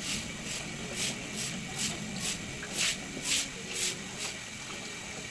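Broom sweeping a concrete floor in quick, even strokes, about two a second, each a short scratchy swish; the strokes stop about four seconds in.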